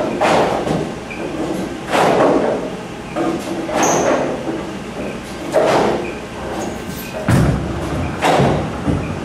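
A string of sharp knocks and clatters about every one to two seconds, then a bowling ball landing on the wooden lane about seven seconds in and rolling away with a low rumble.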